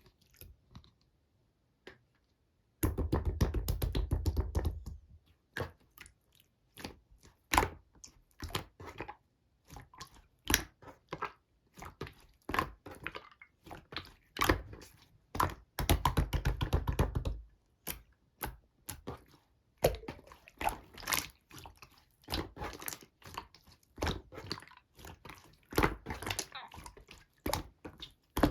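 Pink slime being squished and pressed by hand, making irregular sticky clicks and pops, with two runs of rapid crackling of about two seconds each, near three seconds in and again past the middle.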